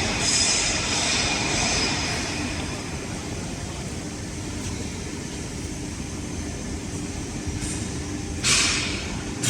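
CNC rebar straightening and cutting machine running: a steady mechanical rumble as the rotating straightening drum and feed rollers pull rebar through. A short, sharp hissing burst comes about eight and a half seconds in.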